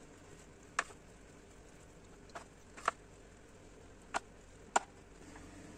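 Plastic brewing paddle clicking lightly against a plastic fermenting bucket as it pushes foam aside on the wort: five short, sharp knocks spaced irregularly, the loudest near the middle.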